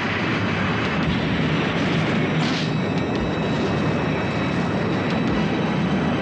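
Steady rumbling roar of a spaceship sound effect for the X-Bomber, with a faint high whine above it and a short hiss about two and a half seconds in.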